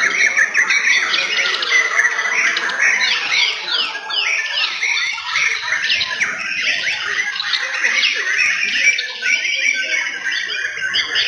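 Several white-rumped shamas (murai batu) singing at once in competition. Their song is a continuous stream of rapid, varied whistled sweeps and chirps, rising and falling and overlapping.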